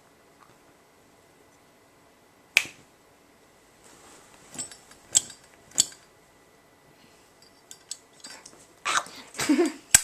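Zippo lighter handled in a flip trick: a series of sharp metallic clicks as the lid is flicked open and snapped shut and the flint wheel struck, the loudest one about two and a half seconds in. A burst of louder rustling and handling noise comes near the end.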